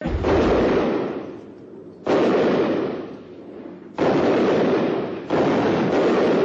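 Four loud explosion blasts about one and a half to two seconds apart, each starting suddenly and fading over a second or more.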